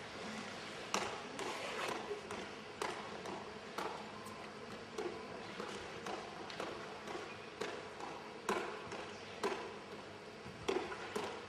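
A gymnast's hands slapping down on the leather of a pommel horse without handles as he swings circles and travels along it, a sharp slap roughly once a second.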